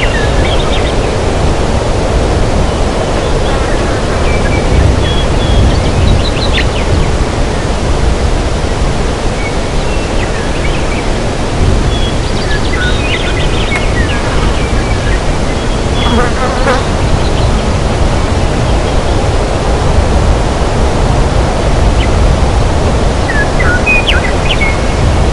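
Forest ambience: a steady, loud rushing noise with scattered short, high chirps, a few at a time, clustered around a quarter, half and two-thirds of the way through.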